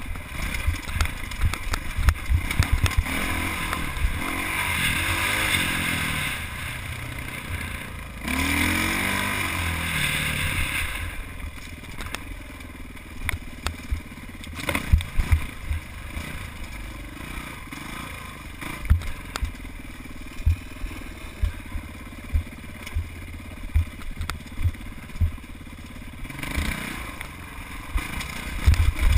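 Dirt bike engine revving up and easing off as the bike climbs over rocks on a single-track trail. It surges twice in the first ten seconds, then runs lower with scattered knocks and clatter from the rocks, and revs again near the end.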